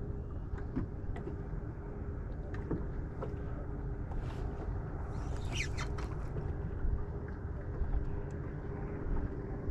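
Steady low rumble of wind and water around a small fishing boat, with a faint steady hum and scattered light clicks and splashes.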